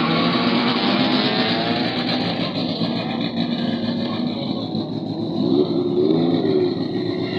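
Drag race car engines revving and accelerating, a dense, continuous engine noise with the pitch climbing near the start.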